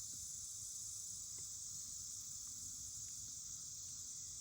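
Steady, high-pitched chorus of insects, with a faint click or two.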